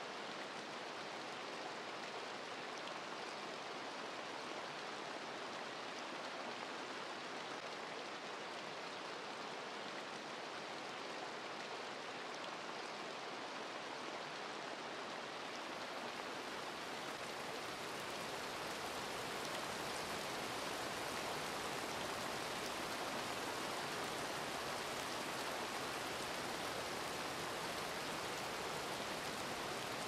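Steady rain falling, an even dense hiss that grows a little louder and fuller about halfway through.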